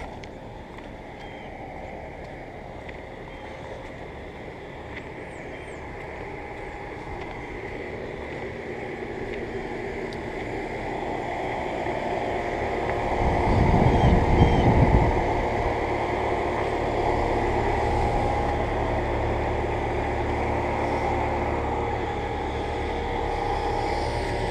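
Central air-conditioner condenser units running, a steady hum of compressor and fan that grows gradually louder, with a brief loud rush of air noise about midway before settling into a steady, louder hum.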